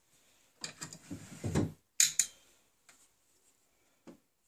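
Wooden knocks and clunks, loudest about one and a half seconds in, then two sharp clicks just after two seconds and a faint tap near the end, as the fall-front flap of a wooden writing desk is unlatched and lowered onto its pull-out supports.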